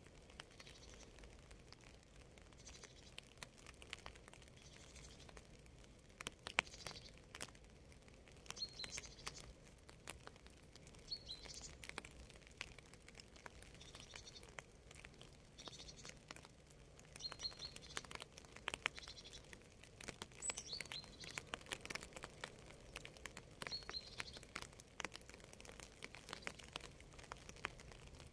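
Faint rain ambience: scattered water drops ticking and pattering, with small birds chirping short high calls every second or two.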